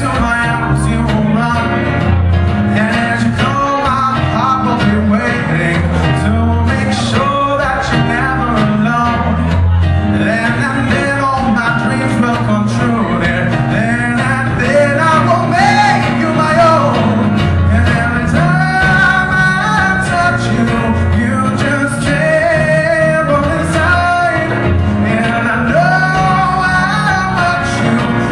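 Live band music: acoustic guitar and electric bass with a male voice singing, the bass notes pulsing steadily underneath.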